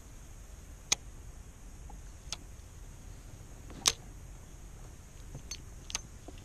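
A few sharp clicks and ticks from handling a spinning rod and reel, five in all and spaced irregularly. The loudest come about a second in and just before the middle.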